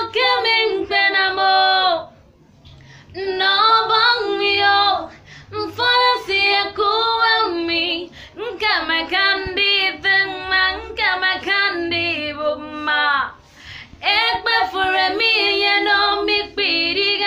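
A young woman singing solo with no accompaniment, in long held phrases broken by two short pauses, one about two seconds in and one near the end.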